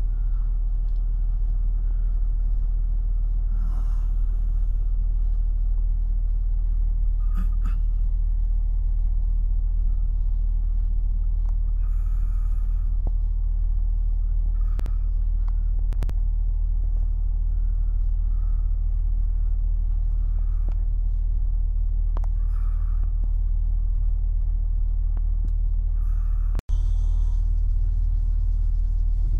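A steady low rumble, with a few brief knocks and clicks, and a short sudden dropout near the end.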